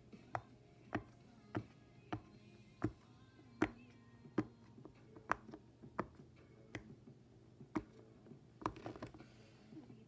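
Bubbles of a green silicone push-pop fidget toy pressed in one by one with a fingertip. Each press gives a sharp pop, a little over one a second.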